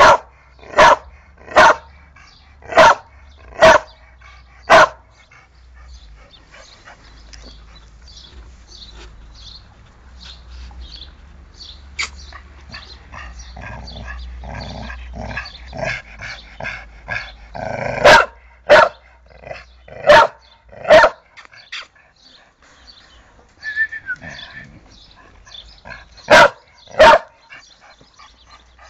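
American Pit Bull Terrier barking: a quick run of six barks, then a stretch of softer, scattered sounds, then three pairs of barks in the second half.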